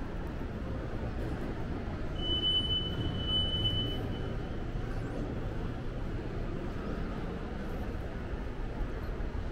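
Steady low rumble of an empty shopping mall's interior ambience. A thin, high whistling tone sounds over it for about two seconds, starting about two seconds in.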